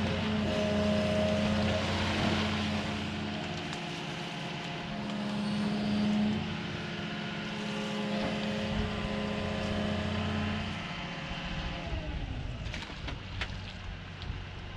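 Excavator's diesel engine running steadily under working load; its revs drop about eleven seconds in. A few sharp snaps come near the end.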